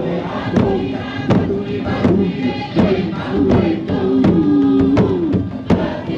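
Large Marquesan drums beaten in a steady beat, about one stroke every three-quarters of a second, under a large group of voices chanting.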